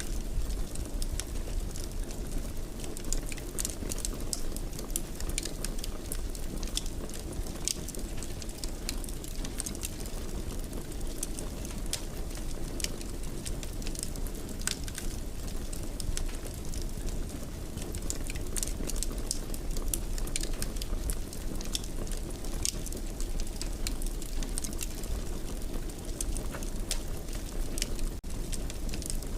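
Wood fire burning in a stone fireplace: a steady low rumble of flames with irregular sharp crackles and pops.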